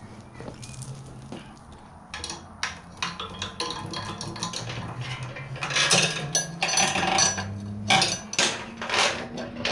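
Steel roller chain rattling and clinking as it is handled and wrapped around a sprocket, with many quick irregular metal clicks, busier in the second half. A low steady hum runs underneath.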